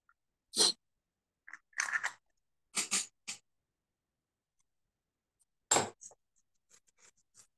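A few short scraping, rustling noises with silence between them, the loudest about half a second in and again near six seconds.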